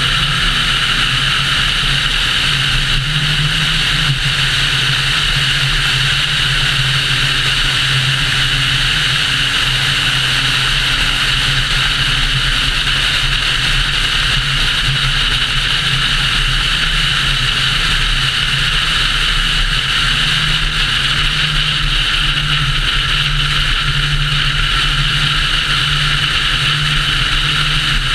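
Steady road and wind noise from a car driving at speed, with a low engine drone underneath, heard from a camera mounted on the hood.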